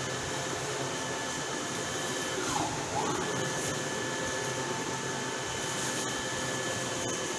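Gantry concrete 3D printer running: a steady motorised whir with a constant whine. About three seconds in, one tone briefly dips in pitch and climbs back, as a motor slows and speeds up again.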